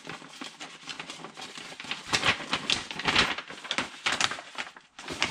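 Paper rustling and crinkling as a manila envelope is handled and opened, in a run of short scratchy strokes that grow louder about two seconds in.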